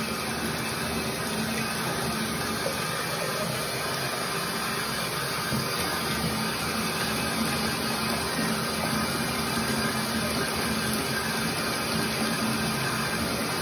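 Water running steadily from a bathtub faucet into the tub, rinsing soap off the trombone parts.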